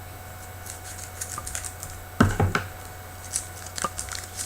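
Trading cards being handled and flipped through by hand: scattered light clicks and rustles, with a pair of louder knocks about two seconds in, over a low steady hum.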